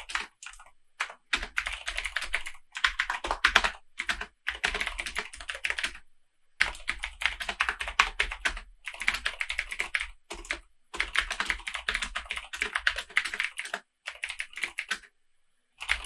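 Typing on a computer keyboard: fast runs of key clicks in bursts, with short pauses between them and a longer pause near the end.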